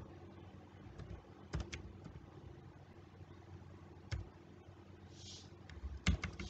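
Computer keyboard being typed on slowly: a handful of separate keystrokes spaced out, with two close together near the end, over a faint steady low hum.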